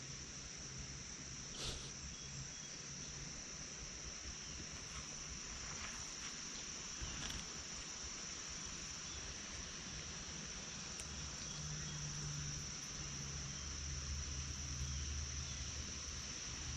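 Steady, high-pitched chorus of insects, an unbroken buzz, with a faint low hum underneath that grows a little stronger in the later seconds.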